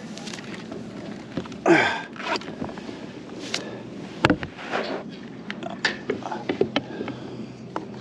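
Scattered knocks and clicks of fishing gear (rod, reel and landing net) being handled on a plastic fishing kayak, with one louder noisy burst about two seconds in.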